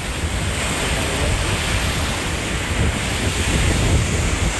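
Small lake waves breaking and washing onto a sandy shore, with wind buffeting the microphone in a low rumble.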